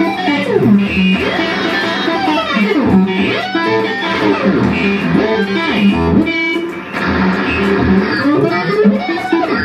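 Electric guitar playing dense, fast notes that bend and slide up and down in pitch over a steady held low note, in an experimental contemporary-music style.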